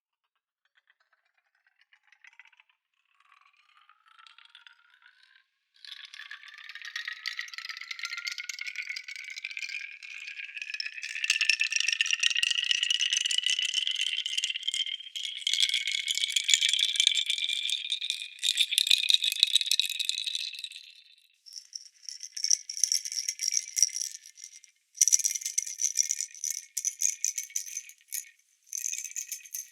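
Baby rattle being shaken, processed with delay and time shift. The rattling starts faint and builds into a dense rattle with ringing tones that slowly rise in pitch. In the last third it breaks into separate shakes over a higher steady ring.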